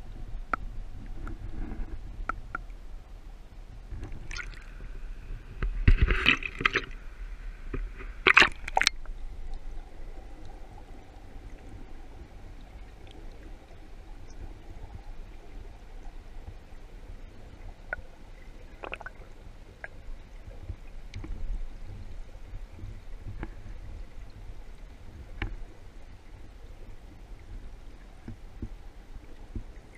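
Muffled water sound heard through a submerged GoPro's waterproof housing: a steady low rumble with scattered clicks and taps. Two louder bursts of water noise come about six and eight and a half seconds in, the first lasting about a second.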